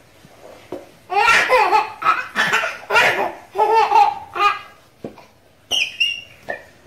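Baby laughing in a run of loud belly-laugh bursts from about a second in, with a couple of shorter high-pitched laughs near the end.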